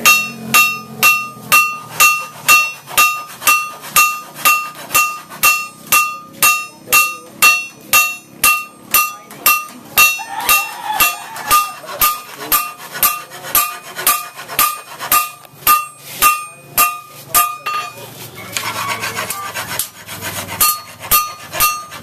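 Hand hammer striking a blade on an anvil while forging a leaf-spring bolo knife, a steady rhythm of about two ringing metallic strikes a second. Near the end the strikes stop for about two seconds while a rough scraping or rubbing noise is heard, then the hammering resumes.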